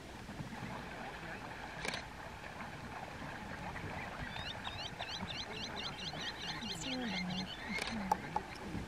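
Shallow water splashing and sloshing as African wild dogs wade and tug at an impala carcass in a dam, with a quick run of high chirps, about five a second, from about halfway through to near the end, and a couple of sharp clicks.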